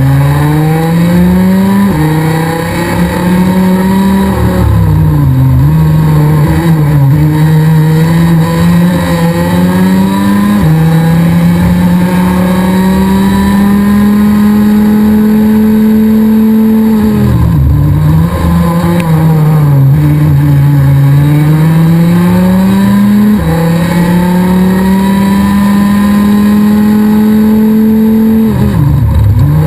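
Rotax DD2 kart's 125 cc single-cylinder two-stroke engine at racing speed, heard from on board, its pitch climbing and falling through the lap. The revs drop sharply about two-thirds of the way through and again near the end.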